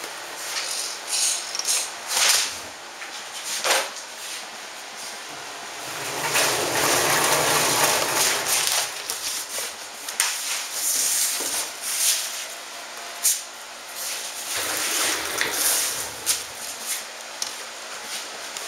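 1/10-scale brushless RC truck driving in short runs, its tyres and motor rising and falling with the throttle; the longest and loudest run comes at about six to nine seconds in.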